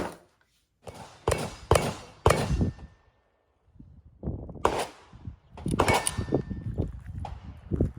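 A Ruger Mark IV Tactical .22 LR pistol firing: three shots about half a second apart, a short pause, another shot, then a quicker string of shots in the last couple of seconds.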